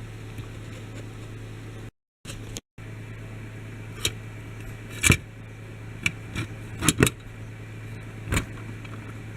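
Sharp clicks and knocks of small diecast toy models being handled, several of them in the second half, over a steady low hum; the sound drops out briefly about two seconds in.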